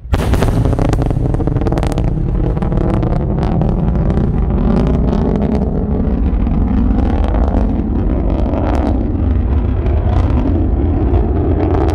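Falcon 9 first-stage booster's Merlin engine firing for its landing burn: a loud, crackling rocket rumble that starts suddenly and holds steady, with the sharpest crackle in the first couple of seconds.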